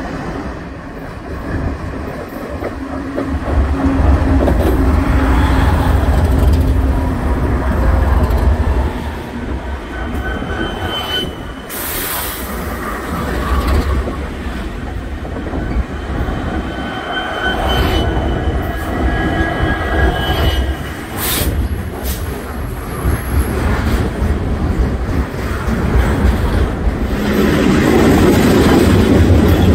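Diesel-hauled freight train passing close by: the locomotives rumble heavily as they go under, then the freight cars roll past with clicking wheels and brief high-pitched wheel squeals on the curve. The rumble swells again near the end.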